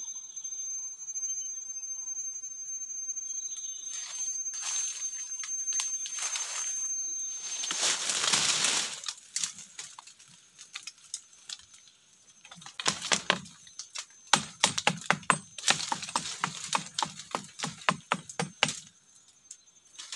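Dry leaves and twigs rustling and crackling as someone pushes through dense forest undergrowth, with a thick run of sharp cracks and crunches over the last third. A steady high-pitched tone sounds through the first third.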